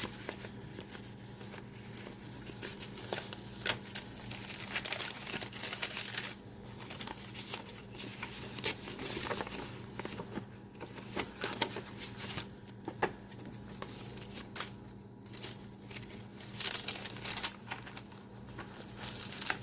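Paper pages and tea-dyed papers of a handmade junk journal rustling and crinkling as they are turned and handled, with many small crisp rustles and taps throughout.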